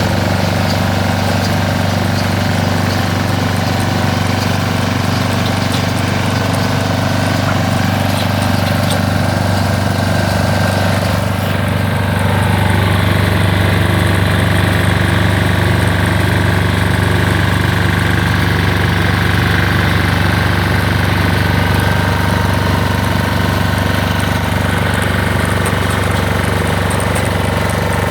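ISEKI RBX810 ride-on straw baler running steadily on its 7.5 hp diesel engine. About eleven seconds in, the high hiss drops away and the engine sound gets slightly louder.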